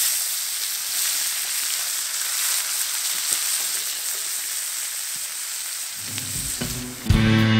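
Onions frying in rendered wagyu beef fat in a pan, sizzling steadily. Music comes in loudly near the end.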